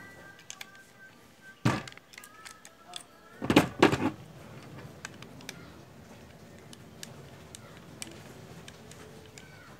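Stanley heavy-duty hand riveter being worked by hand: a sharp metal clack about two seconds in, then a cluster of louder clacks and clunks around four seconds. The freshly reassembled tool is working again but its action is too tight.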